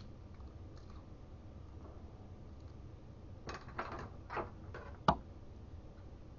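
Small handling sounds of tape being put over a key fob's circuit board: four short scratchy rustles in quick succession, then one sharp click.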